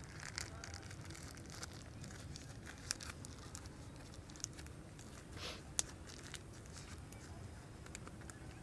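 Faint rustling and crinkling of banana leaves as hands fold and press them down over the ends of a leaf-wrapped pork roll, with a few light ticks.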